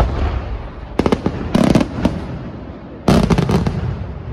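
Fireworks display bangs: one sharp report at the start, a quick cluster of bangs about a second in, and a louder rapid volley of shell bursts about three seconds in, each with a short rumbling tail.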